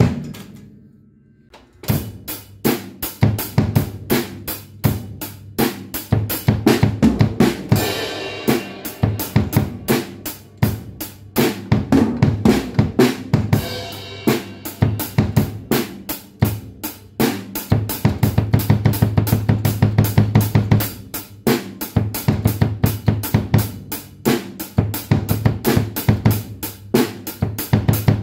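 Acoustic drum kit being played: steady bass drum kicks from a pedal fitted with a stainless steel beater, with snare hits and cymbal crashes. One hit and a short pause come first, then continuous playing starts about two seconds in, with a fast run of rapid bass drum strokes about two-thirds of the way through.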